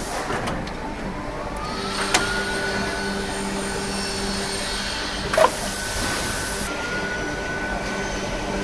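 Plastic injection moulding machine working through a mould cycle: a steady machine hum with a whine that rises in pitch twice as the machine moves, a sharp click about two seconds in, and a louder clunk about five and a half seconds in followed by a brief hiss.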